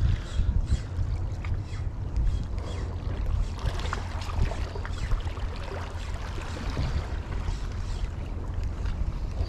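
Wind buffeting the microphone with a low, steady rumble, over sea water washing against shore rocks.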